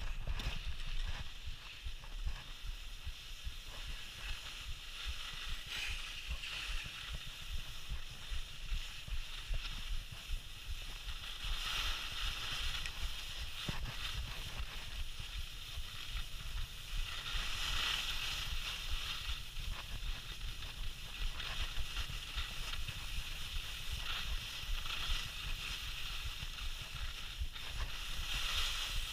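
Skis sliding and scraping over snow, a steady hiss that swells several times, with wind buffeting the microphone as a low rumble underneath.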